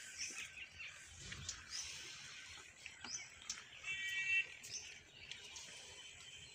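Birds chirping in short, high calls throughout, with one louder held call about four seconds in.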